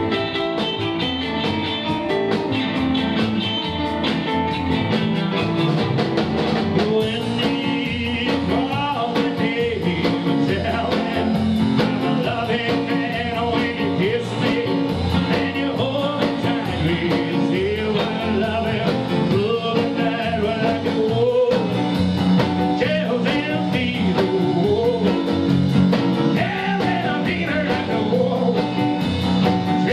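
A live rockabilly band playing a rock 'n' roll number on piano, hollow-body electric guitar, double bass and drums, with a man singing over it.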